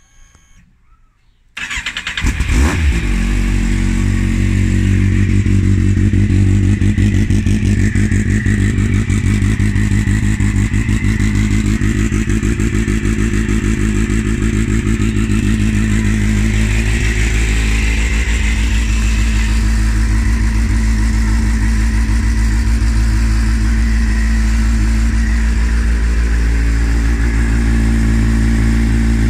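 Kawasaki Z750R's inline-four engine started from cold: brief cranking about a second and a half in, then it catches and settles into a steady idle.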